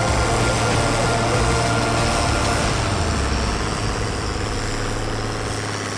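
Diesel engine of a pulling tractor running hard under full load as it drags a weight-transfer sled, a loud steady low drone that eases off slightly toward the end as the tractor moves away.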